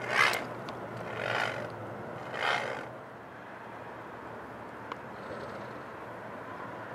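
A crow cawing three times, about a second apart, the first caw the loudest, then only faint steady outdoor background noise.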